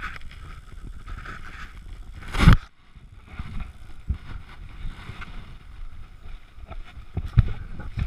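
Handling noise on an action camera's own microphone as it is set up: rustling and soft knocks, with one loud knock about two and a half seconds in.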